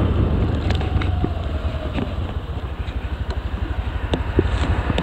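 Honda Dio scooter's single-cylinder engine running on the move, with wind rumbling on the microphone; the noise dips in the middle and builds again near the end.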